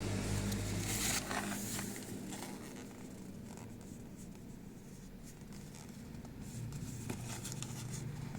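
Card packaging being handled: rustling and scratching, loudest about a second in, with scattered clicks, over a steady low hum.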